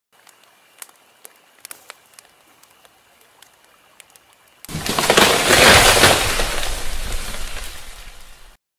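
Fire sound effect: faint campfire crackling with scattered pops, then about halfway a sudden loud rush of crackling flame noise that peaks quickly, fades and cuts off near the end.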